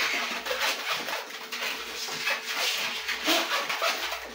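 Latex 160 twisting balloon squeaking and rubbing in the hands as it is twisted into a row of small bubbles.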